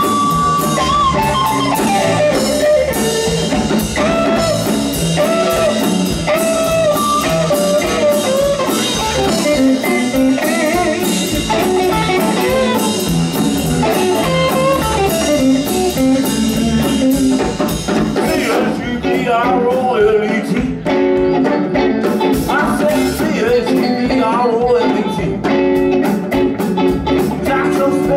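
Live blues band: a lead played on a Telecaster-style electric guitar over bass and drums.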